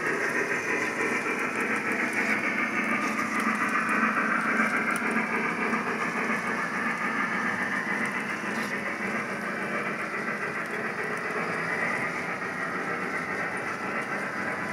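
O gauge model train running on the layout's track: a steady, noisy running sound with no clear beat, swelling and easing slightly.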